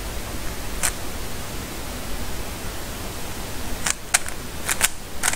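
Steady background hiss, which the uploader blames on an air conditioner, with the plastic layers of a 3x3 Rubik's cube clicking as they are turned: one click about a second in, then a quick run of clicks near the end.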